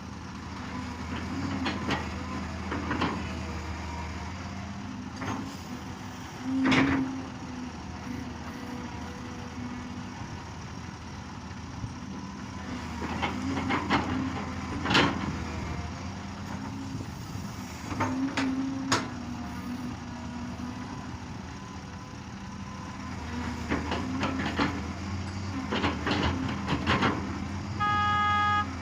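Excavator's diesel engine running steadily under load, with repeated clusters of clanks and knocks as the machine digs and loads a dump truck. A horn sounds for about a second near the end.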